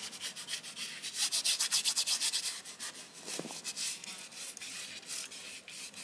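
Bristle paintbrush scrubbing oil paint onto a stretched canvas in rapid back-and-forth strokes, about eight a second. The strokes slow and become sparser about halfway through.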